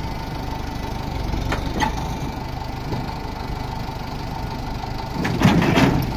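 Wheel loader's diesel engine idling steadily, with a few light clicks and a short burst of metallic clanking and crunching near the end.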